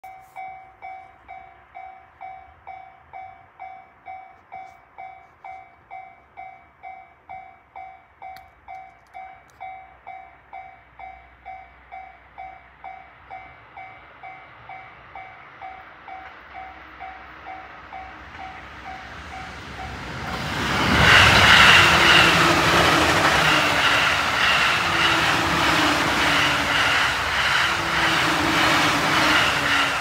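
Japanese railway level-crossing warning bell ringing about twice a second. About 20 seconds in, a train swells up and passes loudly, its wheels clattering in a repeating rhythm that drowns the bell.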